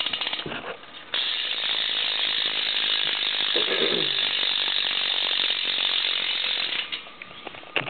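Premium rear hub of a BMX bike ratcheting as the rear wheel freewheels: a dense, fast, steady clicking that starts about a second in and stops about a second before the end, with a few single clicks before it.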